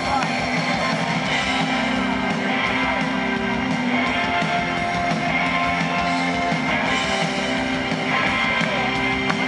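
Live rock band playing: electric guitars, drums and keyboards at full volume, heard from the stands of an open-air stadium.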